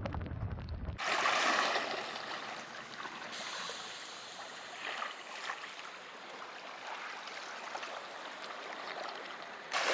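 Steady hiss of water around a canoe on the sea, starting about a second in, with a couple of faint splashes near the middle.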